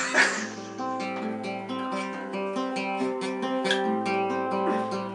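Acoustic guitar strumming a chord progression with a changing bass note, the instrumental intro before the vocals come in. The loudest strum falls at the very start.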